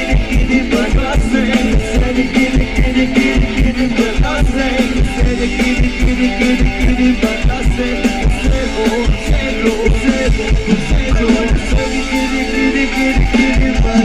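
Live band music with guitar, drums and singing played loud through a car audio system under test, its subwoofer giving a strong, fast bass beat.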